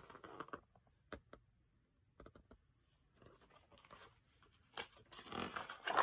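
Paper rustling as a page of a hardcover picture book is turned near the end, after a few faint taps and clicks of hands handling the book.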